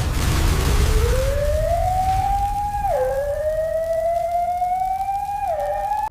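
Electronic whine sound effect, rising like a siren: it climbs steadily for about three seconds, drops suddenly, climbs slowly again, then drops once more near the end. A low rumble sits under it at the start.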